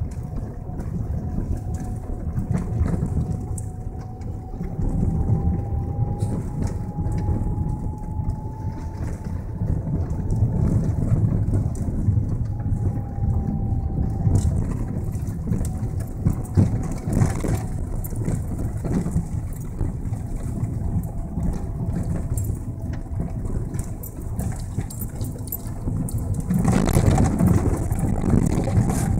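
Car driving slowly over a rough gravel track, heard from inside the cabin: a steady low rumble of engine and tyres, with a faint whine that slowly rises and falls and small clicks of stones. It gets louder and rougher for a couple of seconds near the end.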